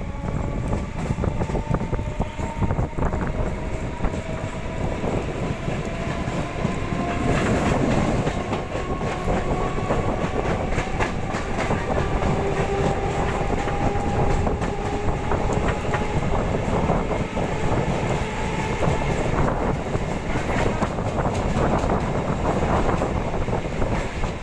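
Indian Railways train running on the track, its wheels clattering over rail joints under a continuous rumble, with a whine that slowly rises in pitch.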